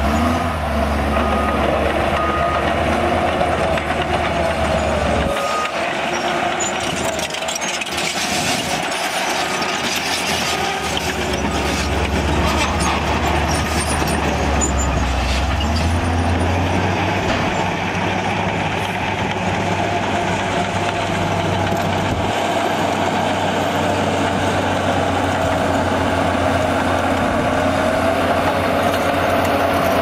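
Heavy diesel engines of 12-wheel dump trucks tipping their beds and a Komatsu bulldozer running together, their deep drone fading and returning several times. A back-up alarm beeps in short, regular pulses through roughly the first ten seconds.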